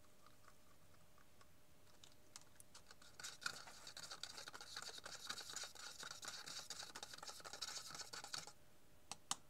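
Ferrous sulfate (iron vitriol) crystals being stirred into water in a plastic cup. A fast scraping rattle starts about three seconds in and lasts about five seconds as the slow-dissolving crystals are worked in. Two sharp clicks come near the end.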